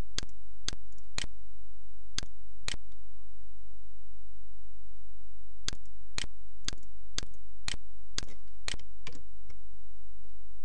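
Sharp single clicks of a computer being operated, about two a second: five in the first three seconds and eight more from about halfway. A steady low hum runs underneath.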